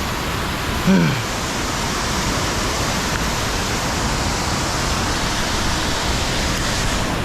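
Waterfall rushing steadily very close to the microphone, a dense hiss of falling water. A short vocal sound, falling in pitch, about a second in.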